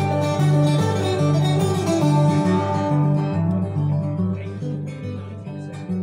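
Guitar played live, plucked notes over a repeating pattern of low bass notes. The brighter high notes die away about halfway through and the playing grows a little quieter.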